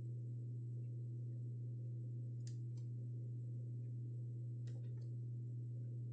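Dell E2420H monitor's control buttons being pressed: two clicks, one about halfway through and one near the end, each followed by a fainter click as the button comes back up. A steady low hum runs underneath.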